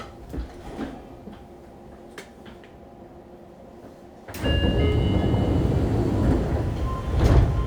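Doors of a Fukuoka City Subway 2000 series train sliding open at a station stop: a sudden loud rush of noise about four seconds in, with a brief chime, ending with a heavier thud near the end as the doors reach their stops.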